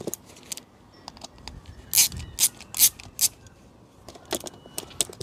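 A screwdriver undoing the two small screws that hold a mass air flow sensor in its plastic housing: a run of sharp clicks, thickest around the middle and again near the end.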